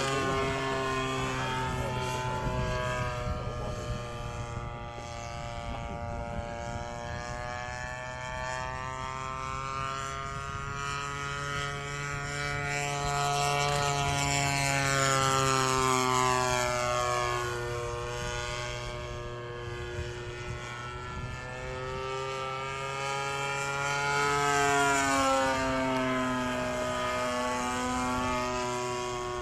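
Impulse 100TD radio-controlled aerobatic model plane flying passes overhead. Its propeller and power unit make a buzzing note that repeatedly rises and falls in pitch and loudness as it approaches and recedes, loudest about halfway through and again near the end.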